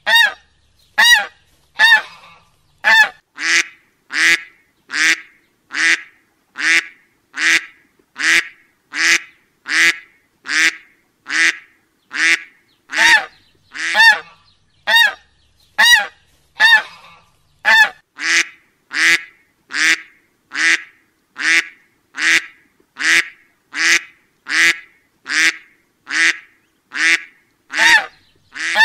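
A duck quack sound effect: the same short, nasal honking call repeated about once a second, evenly spaced like a loop.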